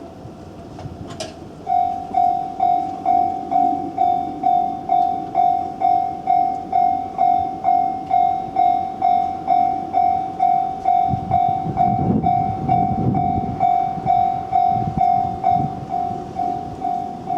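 Japanese railway level-crossing warning bell starting up about a second and a half in, then sounding its electronic ding about twice a second, steady and loud: the crossing is closing for an approaching train. A low rumble swells and fades around the middle.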